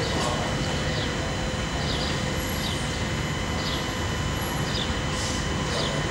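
Steady low mechanical rumble of background noise with a faint steady hum, and short high falling chirps about once a second.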